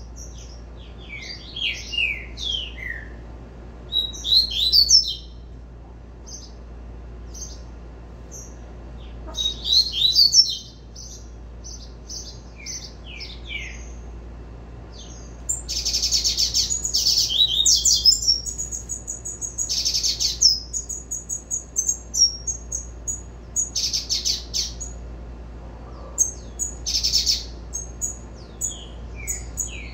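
Young male double-collared seedeater (coleiro) singing its 'tui tui' song in repeated phrases of quick, high descending notes, with a longer, denser stretch of song about halfway through.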